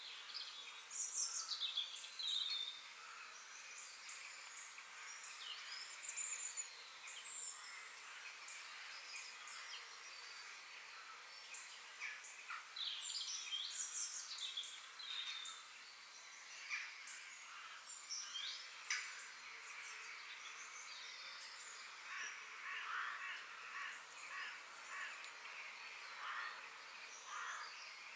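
Several birds calling and chirping in forest ambience: quick falling whistles and short chirps come and go throughout, over a steady high hiss.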